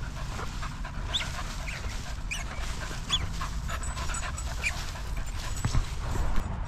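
A dog panting, with about half a dozen short, high squeaks scattered through.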